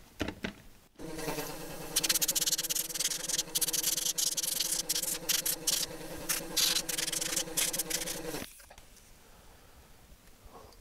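Small air compressor starting about a second in and running with a steady hum, with compressed air hissing out in rapid on-off bursts to blow out a cassette deck mechanism; both stop abruptly about eight and a half seconds in.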